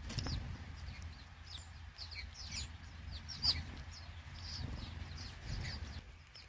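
Small songbirds chirping: a scattering of short, high chips and twitters, over a faint low rumble.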